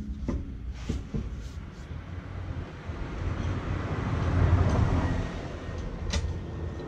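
A few sharp metallic clicks and knocks as wheel bolts are fitted by hand into the hub of a Volkswagen Passat. A low steady rumble runs underneath, and a broad rushing noise swells and fades around the middle.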